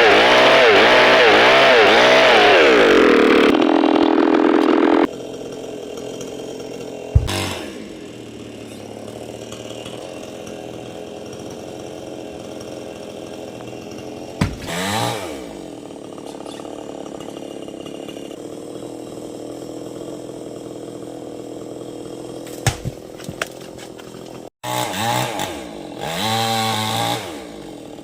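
Chainsaw cutting into a coconut palm trunk, its engine pitch wavering under load for the first few seconds, then dropping to idle about five seconds in. It idles steadily for the rest of the time, with a short rev in the middle and a couple of revs near the end.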